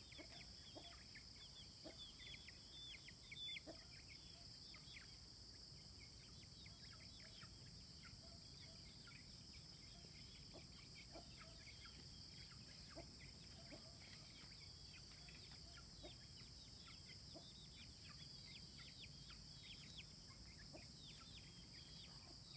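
Faint, rapid peeping of chicks: many short, downward-sliding chirps throughout, over a steady high drone.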